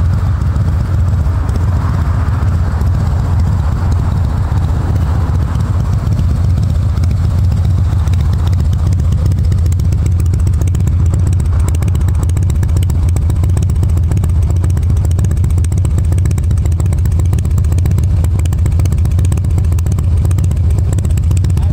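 Harley-Davidson Breakout CVO's V-twin engine idling steadily through a Jekill & Hyde aftermarket exhaust, a loud, even, low-pitched engine note.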